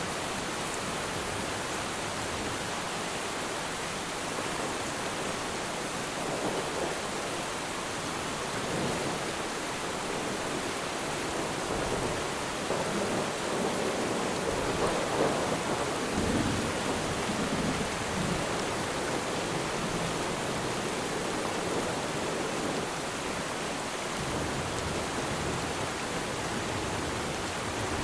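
Steady rain falling on water, with a low rumble of distant thunder that swells and fades about halfway through.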